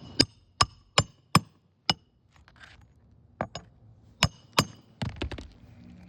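Hammer striking roofing nails into asphalt shingles. Five quick, evenly spaced strikes come first, then a pause, then a few more in ones and twos, several with a brief ringing tone.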